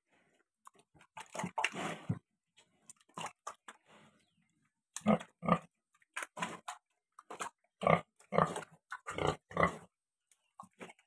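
Pig eating wet feed from a trough: a run of short, irregular slurps and chomps, louder and more frequent in the second half.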